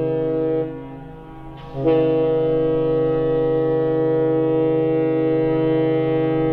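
Ship's horn on a large ferry sounding a long, deep blast. It breaks off under a second in, then sounds again about two seconds in and holds steady.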